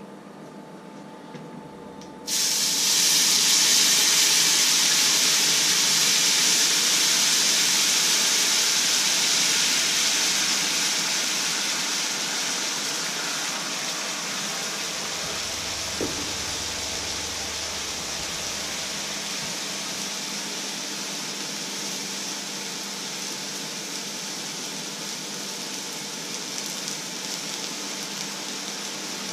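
Water hitting a very hot, dry steel pan on an electric hob. A sudden loud hiss starts about two seconds in and settles into a steady sizzle and fast boil that slowly grows quieter.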